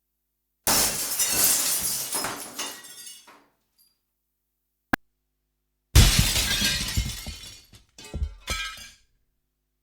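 Two glass-shattering sound effects with dead silence between them. The first is a sudden crash followed by tinkling shards that fade out over about three seconds. After a single click, the second is a heavier smash with a deep thud, followed by two smaller crashes of falling glass near the end.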